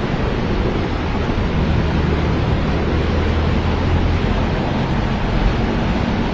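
Muddy floodwater and mudflow rushing down a street in a fast torrent: a loud, continuous rushing noise with a strong low rumble underneath.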